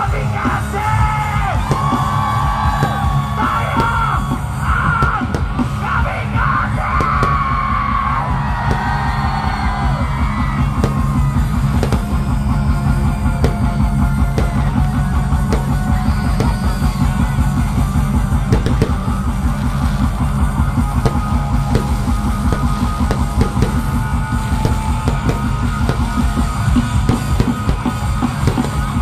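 Rock band playing live at full volume through a large PA. Sung and shouted vocals lead for about the first ten seconds, then a fast, steady drumbeat with heavy bass carries on under the guitars.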